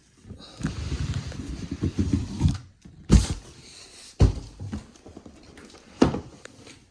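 Cardboard box and packaging of a portable jump starter being handled: about two seconds of rustling and scraping, then three sharp knocks spread over the next few seconds.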